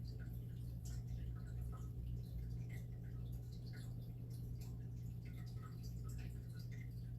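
Steady low electrical hum with faint, scattered light clicks and ticks.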